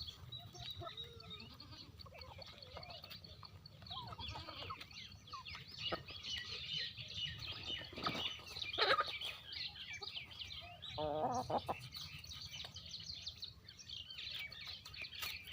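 Chickens clucking and calling as they feed, over a steady background of small birds chirping. A longer, wavering call comes about eleven seconds in.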